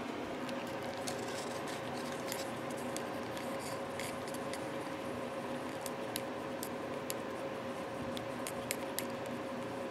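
Faint clicks and light scrapes of a small cup and stirrer as a few drops of honey-amber colour are mixed into an oil and water-based stain, over a steady background hum.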